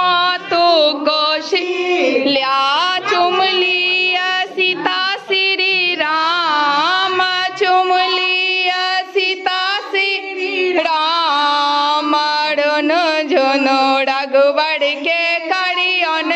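Women singing a traditional folk song, the melody carried continuously by several voices.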